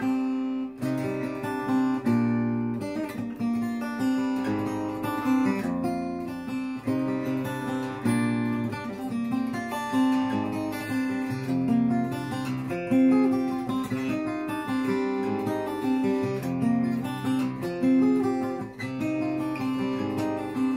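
Solo acoustic guitar playing an instrumental passage: a run of changing plucked notes and chords over a bass line.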